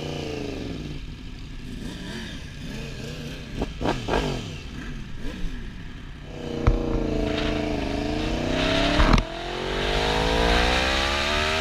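Sport motorcycle engine pulling away: a couple of short throttle blips, then hard acceleration with the pitch rising, a gear shift about nine seconds in, and the pitch rising again through the next gear with wind noise building.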